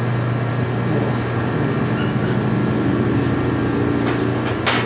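Opened window-type air conditioner running with a steady low hum, and a single sharp click near the end.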